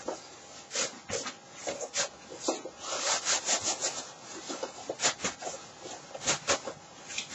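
A foam armour piece rubbing and scuffing against a nylon undersuit as it is stepped into and pulled up: irregular rustling strokes of varying loudness.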